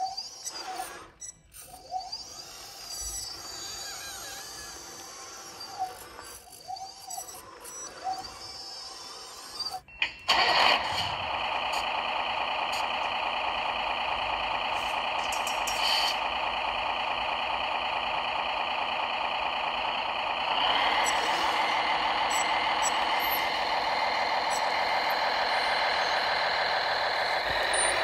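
RC tractor running: about ten seconds in, after a short hiss, a steady mechanical drone with a whine starts up. It gets louder and fuller around twenty seconds in as the tractor pulls under load. The first part is quieter, with only scattered small sounds.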